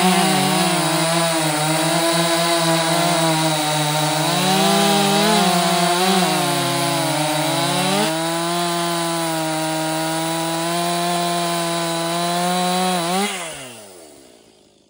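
Stihl MS261 C two-stroke chainsaw at full throttle cutting through a log, its engine pitch dipping and recovering as the chain bites under load. About 13 s in the pitch falls steeply as the engine winds down off the throttle, and the sound fades out near the end.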